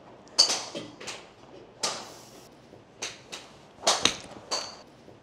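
Golf irons striking range balls: a string of sharp cracks, the loudest about half a second in.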